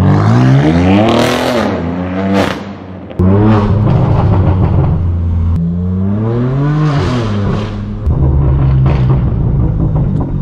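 Straight-piped BMW M4 F82 with an AWE Track exhaust, its twin-turbo inline-six pulling hard through the gears: the revs climb and fall several times in quick runs, with a sharp crack as it lifts off about two and a half seconds in, then it settles to a steadier note.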